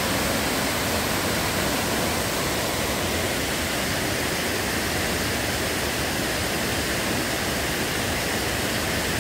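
Water pouring over a concrete dam spillway and crashing down into the pool below: a loud, steady rush of water noise.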